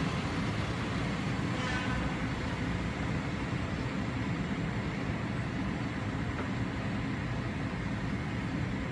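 Steady low rumble of a Czech class 814 diesel railcar's engine running at a standstill, with a brief faint high squeal about two seconds in.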